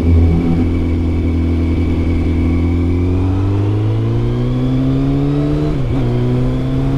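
Kawasaki ZZR600 inline-four engine pulling through the gears under acceleration, its pitch climbing steadily, dipping sharply at a gear change about six seconds in, then climbing again.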